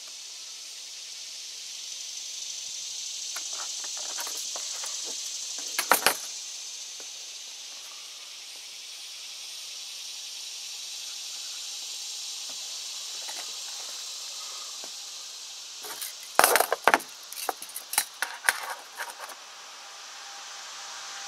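A steady high insect chorus that slowly swells and fades. Over it, a metal-cased tape measure clicks and rattles: a brief cluster about six seconds in as the blade is retracted, and a longer run of clicks between about sixteen and nineteen seconds as it is pulled out again across the plastic.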